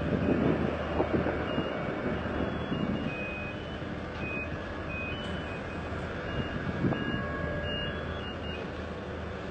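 Vehicle reversing alarms beeping in short, irregular high tones at two slightly different pitches, over a steady low rumble of engines and wind-like noise.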